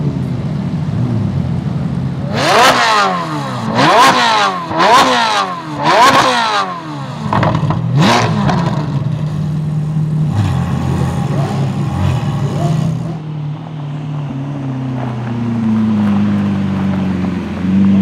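Ferrari 458 Speciale's naturally aspirated V8 blipped sharply five times from idle, each rev shooting up and dropping straight back, then running as the car pulls away. A deeper engine idles steadily near the end.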